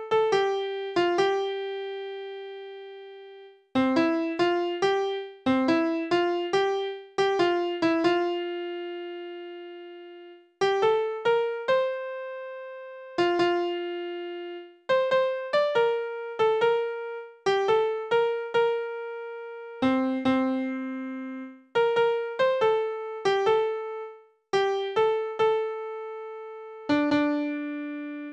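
Synthesized piano from score playback sounding a single vocal line of a choral part note by note, each note struck and dying away, with short pauses between phrases.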